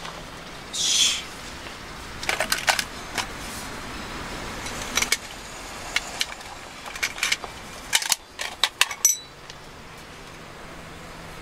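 A small hinged metal tin being opened and its contents handled: a string of light metallic clicks and clinks, with a short scraping rustle about a second in.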